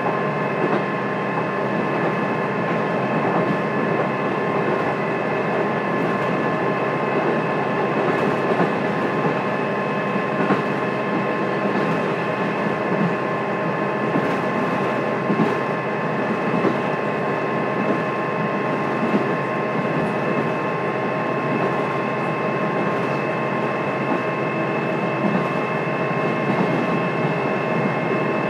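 Interior running sound of the KiHa 200 diesel railcar, heard from the seat above its underfloor diesel engine with the windows closed: a steady engine and wheel hum with a few constant high whining tones and occasional faint clicks.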